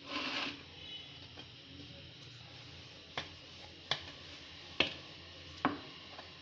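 Wooden rolling pin knocking against a wooden board while roti dough is rolled out: four sharp, faint knocks about a second apart in the second half, after a brief rustle at the start.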